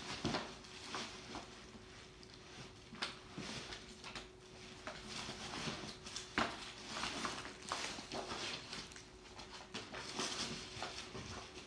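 Gift wrapping on a handbag being unwrapped by hand: irregular rustling and crinkling with sharp crackles, over a faint steady hum.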